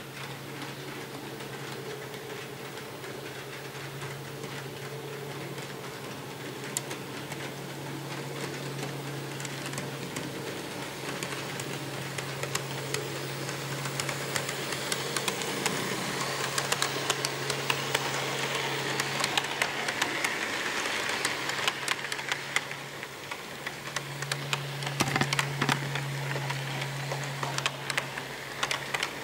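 HO-scale model freight train running past: a steady motor hum with a rapid, uneven clicking of the wheels over the track joints. The clicking thickens over the second half as the cars roll by.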